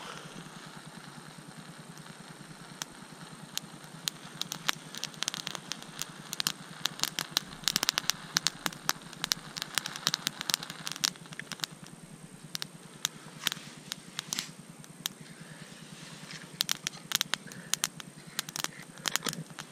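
Bundle of wooden feather-stick shavings catching fire and burning, giving off many irregular sharp crackles and snaps that grow thick from about four seconds in.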